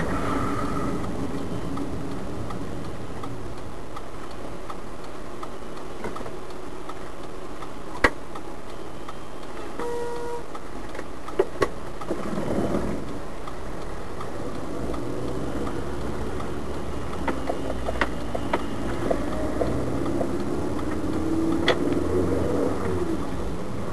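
Car cabin noise while driving in city traffic: a steady engine and road rumble with several sharp clicks and a short beep about ten seconds in. The engine pitch rises near the end as the car pulls away through a turn.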